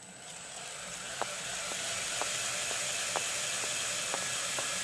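Belt grinder running up to speed, a steady hissing whir that swells over the first second or so and then holds level, with a light tick repeating about twice a second.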